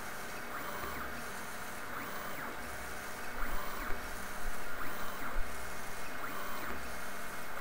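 MendelMax 1.5 3D printer's stepper motors whining as the print head moves, the pitch rising and falling with each move. It gets louder and choppier about three seconds in.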